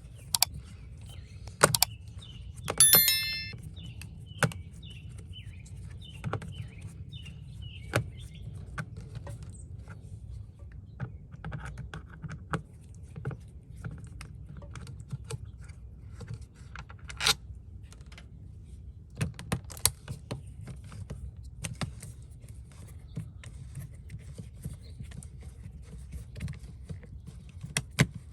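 Scattered clicks, taps and small metal rattles of a screwdriver and outlet hardware as an outdoor outlet's cover and faceplate are unscrewed and opened. A short, loud, high squeak comes about three seconds in.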